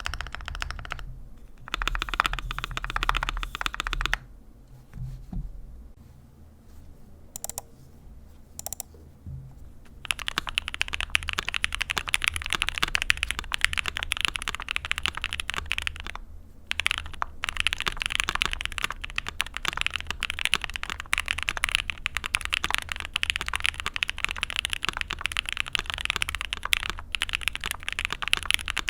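Fast typing on a mechanical keyboard with lubed linear switches in an aluminium-plate board with PBT keycaps. A few seconds of dense clacking give way to sparse single key clacks, then from about ten seconds in a steady run of fast typing on Creampaca frankenswitches.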